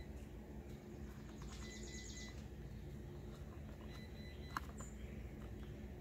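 Faint outdoor background with a low steady hum and a few high bird chirps, including a quick trill about two seconds in. A single sharp click comes a little past the middle.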